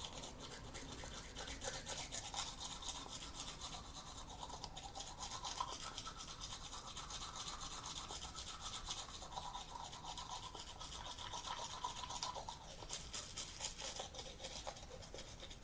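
Manual toothbrush scrubbing teeth with rapid back-and-forth strokes, a continuous wet bristly scrubbing.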